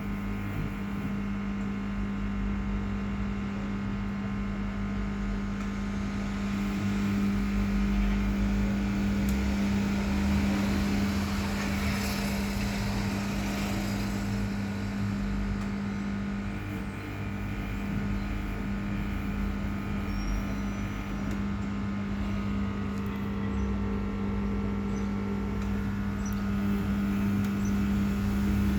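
Samsung WF0600WJV front-loading washing machine running: a steady motor hum with a low drum rumble that swells and eases.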